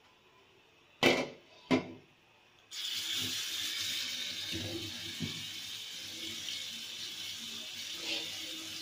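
Two sharp clacks a little under a second apart, then a steady hissing rush that starts abruptly and keeps going.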